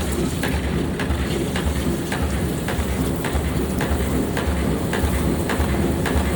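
Pneumatic forging air hammer striking hot metal in a steady rhythm, about two blows a second, over a continuous heavy machine rumble.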